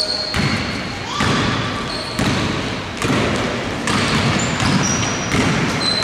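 A basketball bouncing on a hardwood gym floor as it is dribbled up court, with several short high sneaker squeaks, in a large indoor hall.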